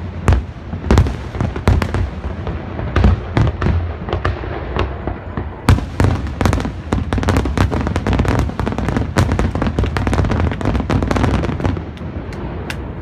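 Fireworks display: a rapid, dense run of shell bursts and crackling over a constant low rumble. The bursts come thickest in the middle and thin out near the end.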